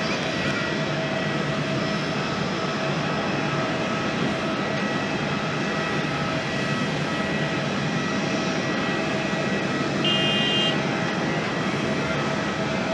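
Boeing 787-8 airliner's jet engines running steadily, an even rushing noise with a few steady tones in it. A brief high tone sounds about ten seconds in.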